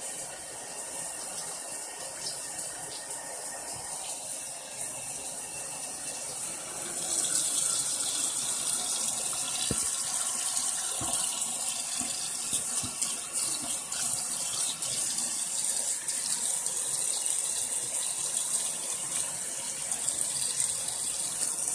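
Tap water running into a bathroom sink, a steady hiss that grows louder about seven seconds in, with a few brief sharper splashes partway through.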